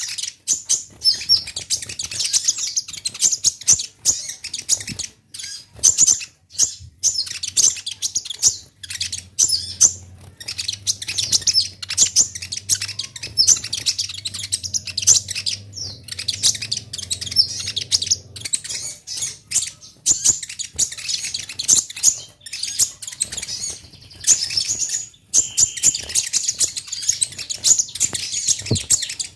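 Kolibri ninja sunbird singing in fast, high-pitched twittering chirps, almost without pause, broken only by brief gaps. A faint low hum sits underneath for several seconds in the middle.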